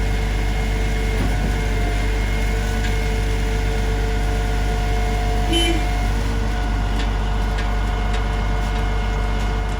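Heavy diesel engine running steadily at an even speed. There is a short high tone about five and a half seconds in.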